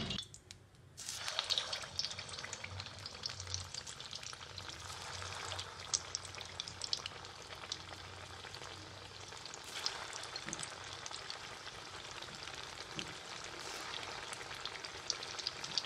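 Bread-coated potato cutlets deep-frying in hot oil: a steady sizzle with scattered crackles and pops, starting about a second in.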